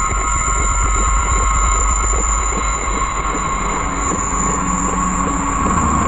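Electronically processed contact-microphone recordings of a disk drive, microwave oven and photocopier layered into a dense drone: several steady high tones over a low rumble and fast crackling. A few low humming tones come in about four seconds in.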